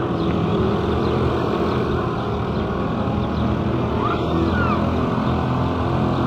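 Bumper boats' small motors running steadily, a low, even engine hum. Faint short high chirps sound above it, and a brief rising-then-falling whistle comes about four seconds in.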